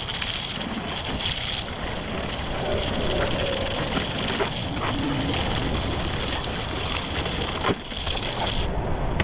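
Water spraying against a push mower while it is washed: a steady hiss that cuts off suddenly near the end.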